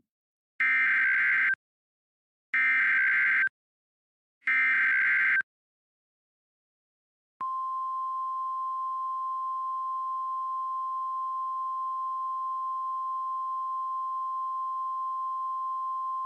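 Emergency Alert System header: three short, harsh, warbling digital data bursts about a second apart. After a brief pause comes one steady, high single-pitch attention tone lasting about nine seconds, which stops abruptly.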